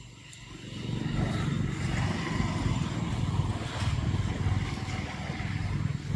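A motor vehicle's engine running close by. It grows louder over the first second and then holds steady as a low hum.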